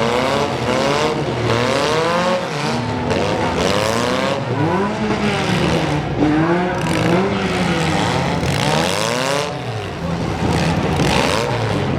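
Several four-cylinder demolition derby car engines revving hard over and over, their pitch rising and falling in overlapping sweeps.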